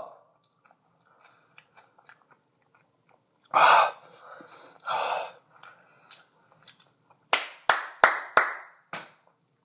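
A person chewing a mouthful of ghost pepper fries, with two heavy breaths partway through. Near the end come five or six quick, sharp sounds in a row.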